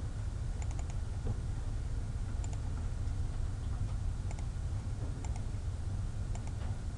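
Faint, sparse clicks of a computer mouse, single or in quick pairs every second or two, over a steady low hum.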